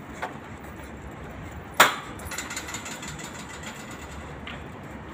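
A sharp click about two seconds in, with a fainter click near the start and another later, over steady low background noise.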